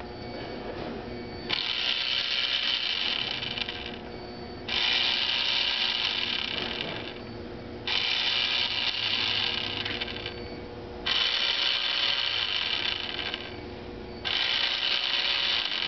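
Battery-powered automatic soap dispenser's small pump motor and gears whirring in one dispensing cycle after another: five runs of about two and a half seconds each, with a short pause between them.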